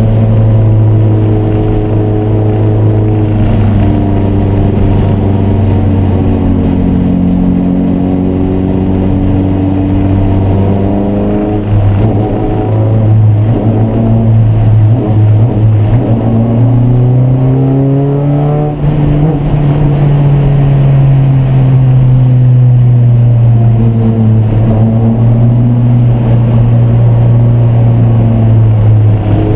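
Race car engine running hard, its pitch sinking slowly, breaking up through gear changes, then climbing again and easing off as the revs rise and fall.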